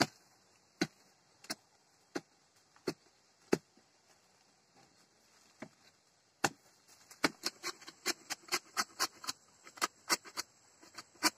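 A long metal digging bar and a machete striking into soil and tree roots while digging out a tree. There are six sharp knocks about 0.7 s apart, a pause of a few seconds, then a quicker run of three or four strikes a second.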